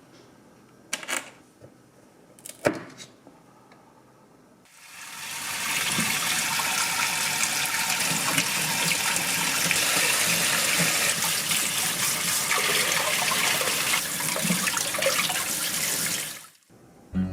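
A few light knocks, then a kitchen tap turned on and running in a steady stream for about twelve seconds before it is shut off abruptly.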